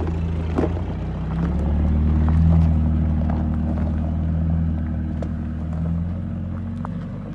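Off-road 4x4's engine running at low revs with a steady drone; it swells about two seconds in and then slowly eases off.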